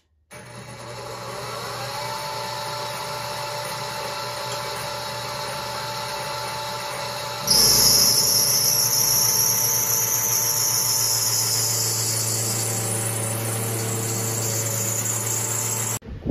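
Benchtop milling machine's spindle motor starting up and running steadily with a whine. About seven seconds in, the cutter bites into a metal plate and a loud, high hiss joins the motor. It all stops suddenly near the end.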